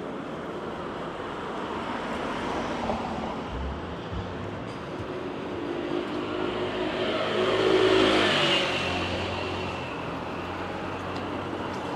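A motor vehicle passing by over steady city background noise. It builds to its loudest about eight seconds in and drops in pitch as it moves away.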